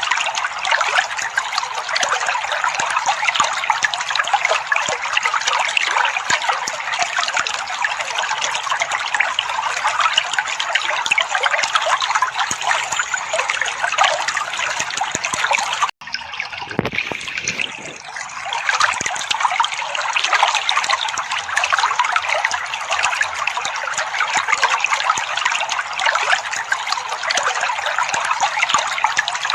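Trickling, splashing water running steadily. It cuts out for an instant just over halfway, then comes back softer for a couple of seconds before returning to full level.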